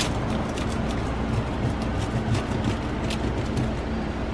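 Pizza scissors snipping through a crisp-baked pizza crust: a run of short, sharp snips and crunches. Under it is a steady low rumble with a faint hum.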